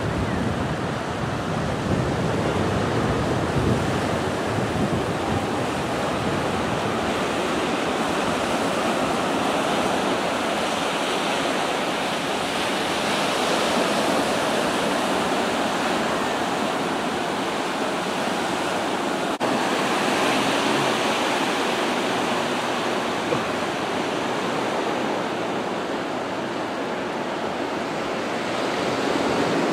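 Ocean surf breaking and washing onto a rocky, sandy shore: a steady rushing sound that swells now and then.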